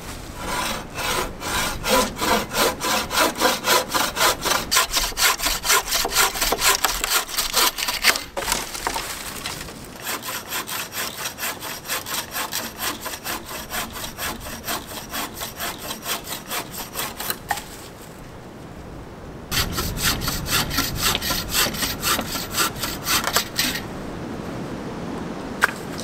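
Wooden-framed bucksaw cutting through limbs of a fallen ash tree: quick, regular push-pull strokes, about three a second, in three bouts with short pauses between.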